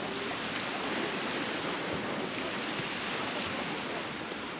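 Baltic Sea surf washing onto the shore: a steady, even rush of breaking waves that swells slightly about a second in.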